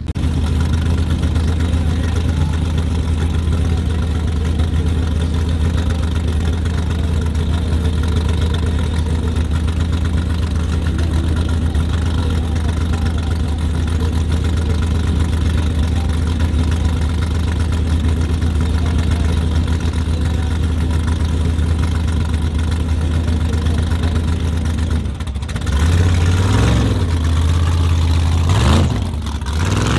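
Formula offroad buggy's engine idling steadily, then revved up and down twice near the end as it gets ready to launch.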